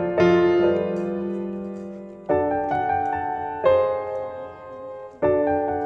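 Background piano music: slow chords, each struck and left to fade before the next.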